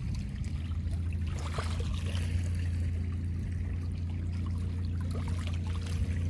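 Small waves lapping and trickling at a lake's edge over a steady low rumble, with a few light splashes.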